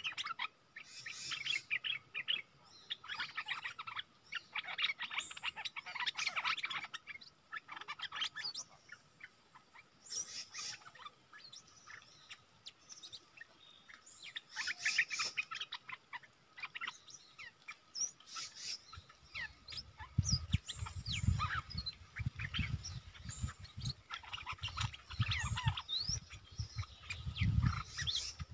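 Bulbuls calling: repeated bursts of quick, high chirping and twittering calls from a caged decoy bulbul and a wild bulbul answering it. In the last third, low rumbling bumps come in underneath the calls.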